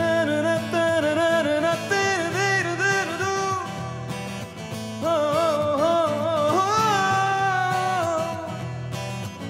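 Male voice singing a Bollywood pop melody with vibrato over a strummed acoustic guitar. About two-thirds of the way through, the voice swoops up into a long held note.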